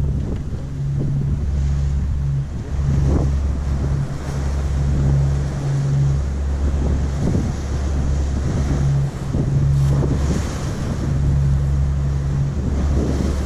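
Wind buffeting the microphone in gusts on the open deck of a ferry under way at sea, a heavy low rumble over the rush of sea water.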